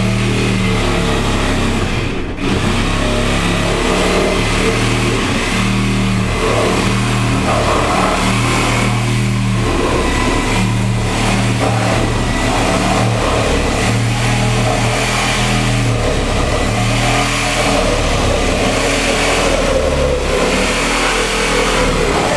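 A loud engine running steadily with a low hum that swells and eases every second or two, then stops abruptly.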